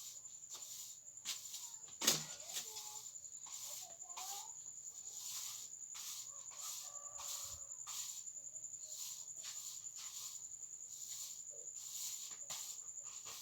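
Rural backyard ambience: a steady high-pitched insect trill pulsing about twice a second, with faint animal calls in the background and one sharp knock about two seconds in.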